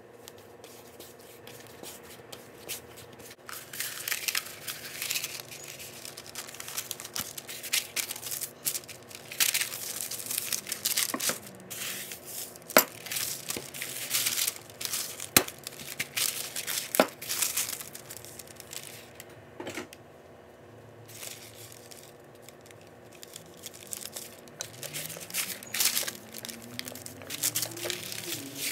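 Hands kneading a soft dough on a wooden board: irregular sticky squishing, pulling and tearing of the dough, with a few sharp knocks against the board. Near the end a rolling pin rolls over the dough.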